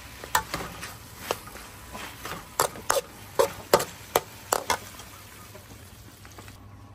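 Metal spatula knocking and scraping against a steel wok while stir-frying pork offal with shallots and chilies: a run of sharp clacks in the first five seconds, then quieter stirring.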